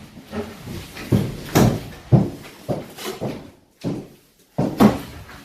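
Irregular series of hollow knocks and bangs from demolition clean-out work, roughly two a second.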